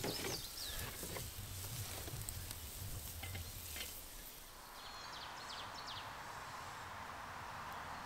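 Burger patties sizzling over hot charcoal on a kettle grill. About four and a half seconds in, the sizzle gives way to a quieter steady outdoor hiss with a few short bird chirps.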